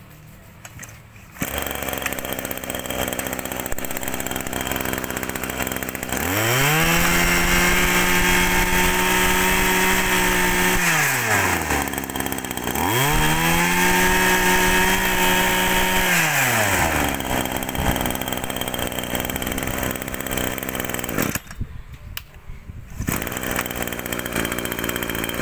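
Kawasaki brush cutter's small engine catching about a second and a half in and idling, then revved up to high speed twice, each rev held for a few seconds before dropping back to idle. It briefly dies down near the end.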